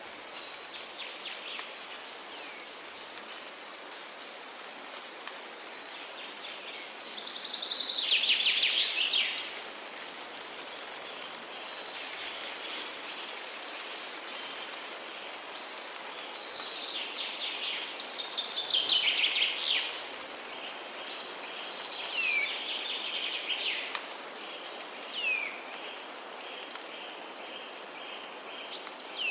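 Forest ambience: birds singing in fast, rapidly repeated trills, loudest about eight and nineteen seconds in, then a few short downward-sweeping calls near the end, over a steady high insect hiss.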